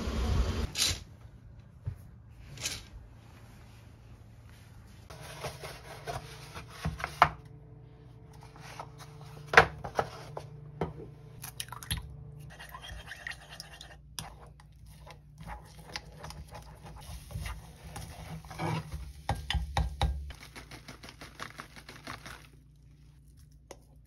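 Kitchen cooking sounds: an egg cracked against a small pot, clicks and knocks of a utensil on the pot, and scraping as scrambled egg is pushed from the pot into a bowl near the end. Street noise fills about the first second.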